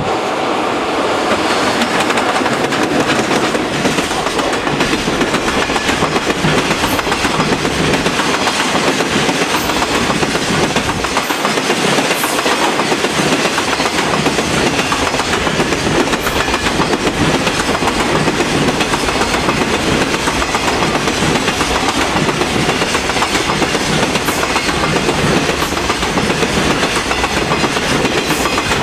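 Container flat wagons of a long freight train rolling past, their wheels clattering steadily and continuously over the rail joints.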